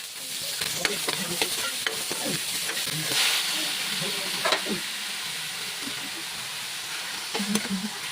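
Food sizzling in hot oil in a cooking pan while it is stirred, the utensil clicking and scraping against the pan now and then over a steady frying hiss.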